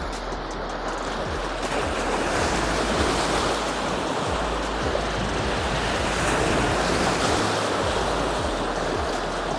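Sea waves breaking and washing over the granite boulders of a jetty, a continuous rushing surf that swells louder about two seconds in and again around six seconds.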